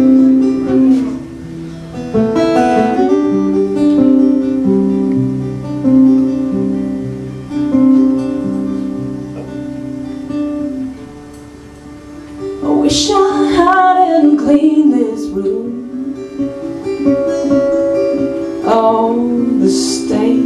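Live acoustic band playing an instrumental passage: acoustic guitar strummed and picked over long, held low notes that step from one pitch to the next, likely from the band's cello. About thirteen seconds in, a wavering, sliding line rises above the guitar.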